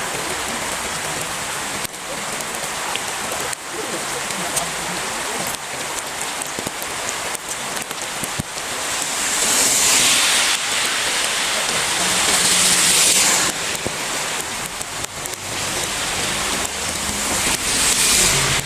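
Heavy rain pouring down in a steady, dense hiss, swelling louder about ten seconds in and again near the end.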